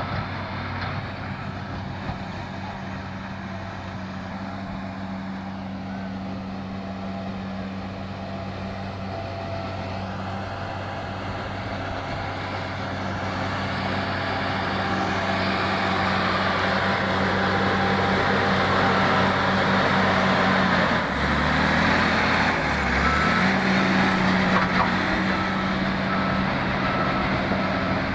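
Heavy diesel engine of earthmoving machinery running steadily, growing louder about halfway through, with its low note briefly dropping a little past two-thirds in.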